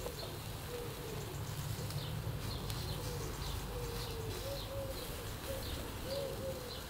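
A pigeon cooing in short repeated phrases while small birds chirp, over a steady sizzle of venison frying in a pan on a small wood-fired stove.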